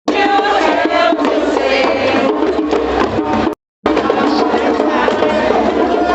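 Crowd of marchers chanting and singing together over music, loud and continuous. It is broken by a brief dead-silent gap about three and a half seconds in.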